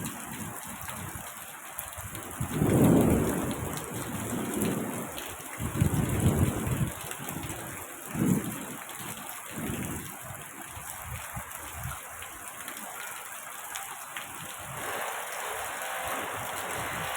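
Steady rain falling, with thunder rumbling several times; the loudest roll comes about three seconds in, with more around six and eight seconds.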